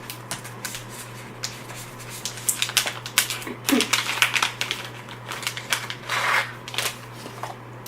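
Packaging of a makeup brush set being opened by hand: irregular crinkling and rustling with scattered clicks and taps.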